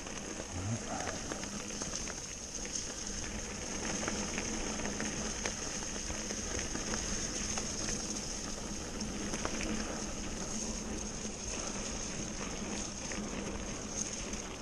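Mountain bike riding fast over a wet, leaf-covered dirt trail: steady tyre rolling noise mixed with many small clicks and rattles from the bike.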